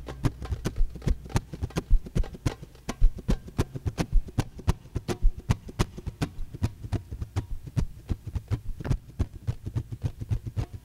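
Hand-drum solo on djembe and darbuka: rapid, dense hand strikes, with a deep bass stroke about once a second.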